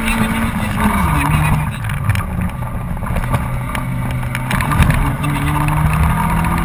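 Honda Civic's 1.3-litre four-cylinder engine heard from inside the cabin under hard acceleration. Its pitch drops at a gear change about a second in, climbs again, and shifts once more near five seconds. Road and tyre rumble with scattered ticks of stones runs underneath.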